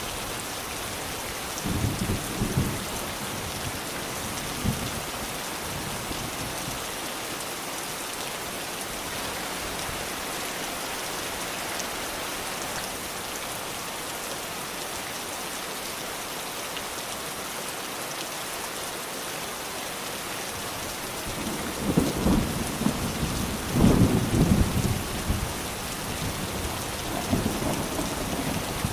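Steady rain falling in an even hiss, with short low rumbles of thunder a couple of seconds in and a stronger run of rumbles near the end.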